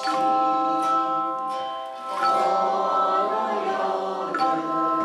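Tone chimes ringing out a slow melody, with new notes struck about every two seconds and left to sustain, while a group of voices sings along.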